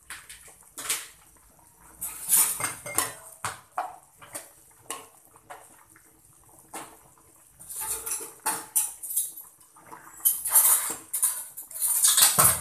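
Metal spatula scraping and clinking against the side of an aluminium cooking pot as a simmering fish-head curry is stirred: irregular scrapes and knocks, busiest and loudest near the end.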